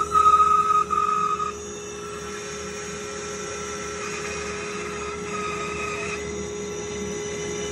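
Bandsaw running and cutting a curve through a thick glued-up board of padauk over purple heart wood, with a steady hum and a high whine. The sound drops sharply in level about a second and a half in and carries on quieter and steady.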